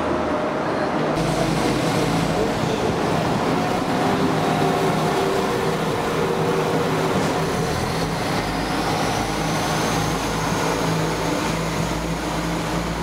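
London Midland Class 172 diesel multiple unit running along the platform, its engine giving a steady low hum, with a faint high whine that rises about two-thirds of the way through and then holds.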